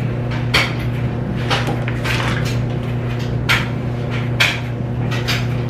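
Several short, sharp rustles and knocks of things being handled, roughly one a second, over a steady low hum.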